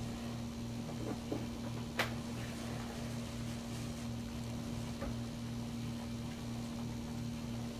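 A steady mechanical hum, like a fan or other small appliance running, with a low throb that pulses evenly under it. A few faint clicks sound over it, the sharpest about two seconds in.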